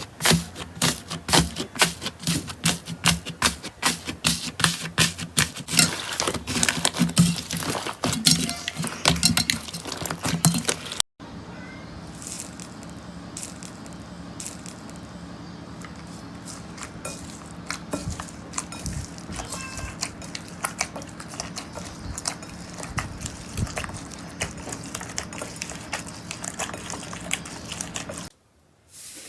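Slime being squeezed and poked by hand, making dense sticky clicks and pops. About 11 seconds in, the sound cuts to a quieter stretch with a steady low hum and only occasional clicks.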